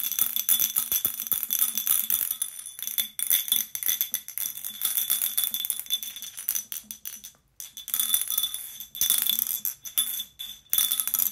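The glass marble rattling inside an empty Ramune codd-neck bottle shaken rhythmically like a maraca, fast dense clicking with a glassy ringing. It stops briefly about seven and a half seconds in.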